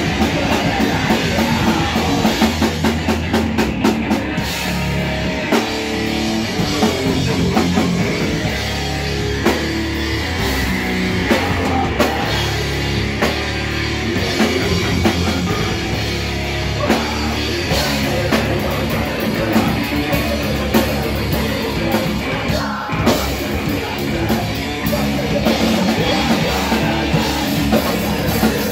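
Heavy rock band playing loud live: electric guitars, a drum kit and a vocalist screaming into the microphone.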